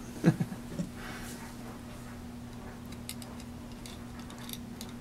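Groove-joint pliers being handled and clamped onto a braided steel wire: a couple of soft knocks near the start, then a few faint metal ticks, over a steady low hum.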